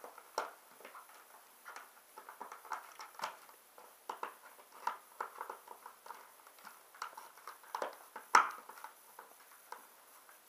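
Light irregular tapping, scraping and crinkling of a cardboard doll box and its packaging being handled while the doll is worked free, with one sharper click a little after eight seconds in.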